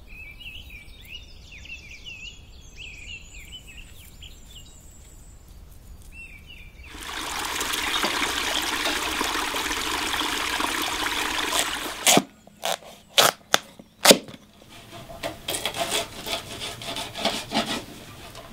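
Birds chirping, then water running loudly over rocks from about seven seconds in. A few seconds later come four sharp knocks, then softer, uneven clicking.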